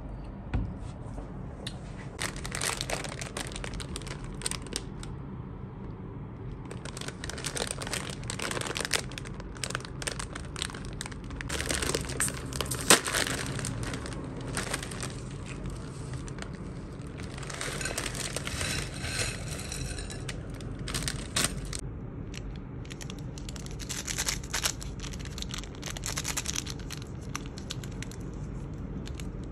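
Plastic snack and seasoning packets crinkling and tearing open in repeated bursts as hands handle them, over a steady low background rumble. About halfway through there is one sharp click.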